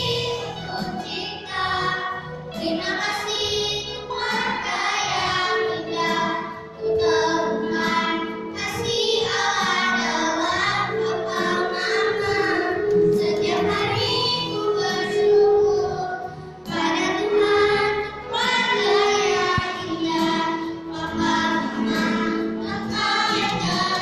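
Children's choir singing a church song, with one girl's voice amplified through a microphone carrying the melody.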